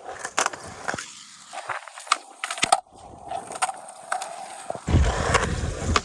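Skateboard rolling on pavement, with several sharp clacks from the board and trucks. A louder, lower rolling rumble sets in about five seconds in.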